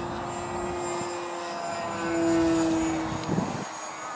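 ParkZone VisionAire RC plane's electric motor and propeller whining steadily overhead, swelling louder about two seconds in and then easing off. A brief low rumble comes just after.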